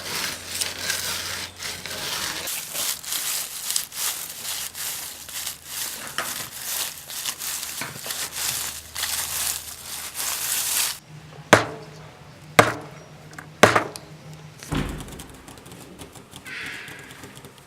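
Foley props being worked: a dense crinkling, crackling rustle full of small clicks for about eleven seconds, which stops abruptly and is followed by four sharp knocks about a second apart, the last with a dull low thud.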